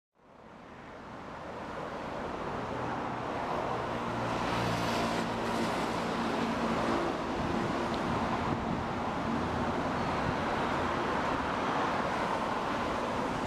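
Road traffic and city noise, a steady rush with a low engine hum under it, fading in over the first two seconds.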